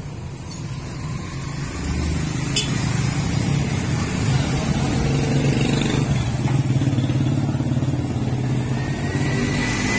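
A motor vehicle engine running, swelling about two seconds in and then holding steady, with one sharp click partway through.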